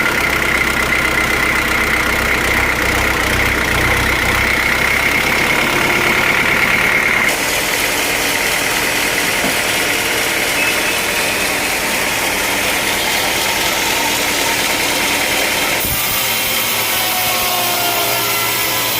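Sawmill machinery running steadily, a motor hum with a high steady whine. The sound changes abruptly about seven seconds in and again near the end.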